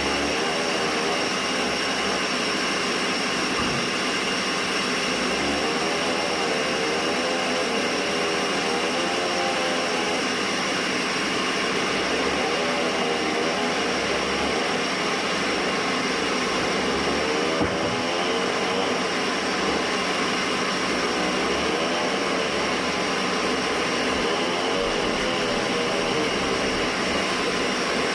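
Band sawmill running: a steady machine whine with several fixed high tones over a lower tone that wavers up and down.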